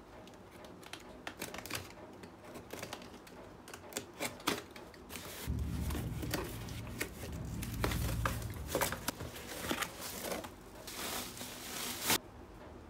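A cardboard parcel being opened by hand: packing tape cut and torn, and the cardboard flaps crackling and rustling in a quick, irregular run of clicks and scrapes. Near the end bubble wrap crinkles as it is pulled out of the box, with one sharp crack.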